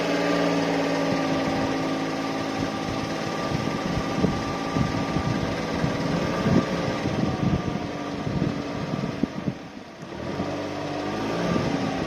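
Suzuki Spacia MK53S kei car's 660cc three-cylinder engine running at low speed with an irregular rattling and clicking over the drone, strongest through the middle. The engine note drops near the end, then climbs again. The noise appears on the throttle with a cold engine, and the owner suspects a belt tensioner or water pump.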